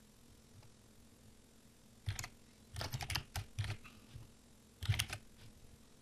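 Computer keyboard keys clicking in short bursts of typing, starting about two seconds in after a quiet stretch.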